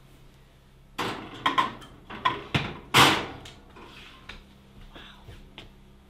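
Oven door being worked and pie pans going in: a run of knocks and clatter starting about a second in, the loudest a slam about three seconds in, then a few light clicks.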